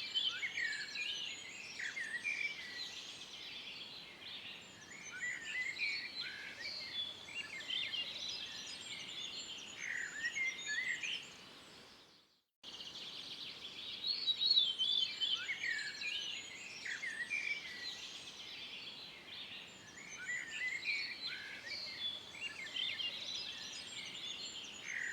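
Several songbirds chirping and singing in quick, high phrases over a faint steady hiss. About halfway through, the sound fades out briefly and picks up again.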